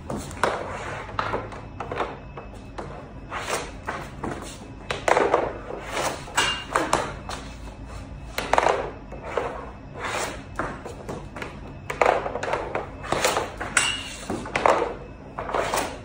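Hockey pucks shot one after another with a stick at metal cowbells tied onto a hockey net: a string of sharp knocks and thuds, about one a second, as the stick strikes the puck and the pucks hit the net and the bells, a few hits ringing with a short metallic ping.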